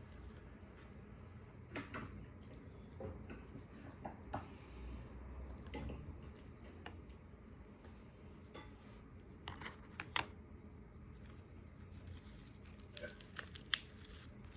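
Scattered light clicks and clinks of tableware being handled during a meal, with a few sharper clinks about ten seconds in and near the end.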